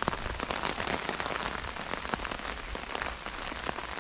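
Rain mixed with hailstones falling on a tarpaulin overhead: a steady patter thick with sharp, irregular ticks of individual stones and drops striking the sheet.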